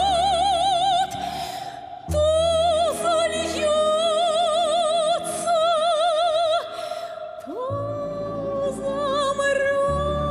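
A woman singing a Russian song in a full, operatic voice, holding long notes with wide vibrato, with short breaks between phrases, over orchestral accompaniment.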